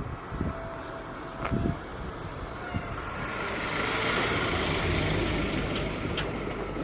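A vehicle passing by. Its noise swells to a peak in the middle and eases off toward the end, with a few light clicks.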